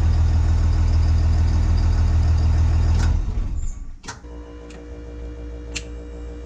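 5.9-litre 24-valve Cummins inline-six diesel running steadily with no exhaust pipe fitted, heavy in the low end. About three and a half seconds in the engine sound drops away, leaving a faint steady hum and a couple of light clicks.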